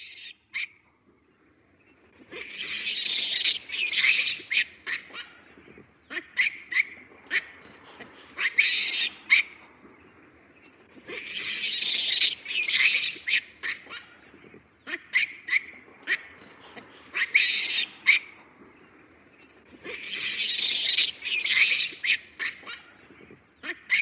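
Baby baboon screaming: bouts of high-pitched screams every few seconds, with short sharp squeals in between.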